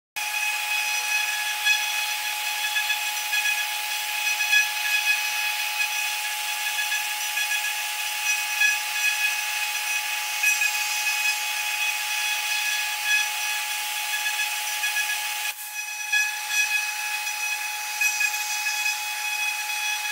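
2.2 kW high-speed spindle of a Woodpecker DP1212 CNC router engraving brass with a fine bit: a steady high-pitched whine of several tones over a hiss, with small irregular peaks as the bit cuts. The level dips briefly about three quarters through.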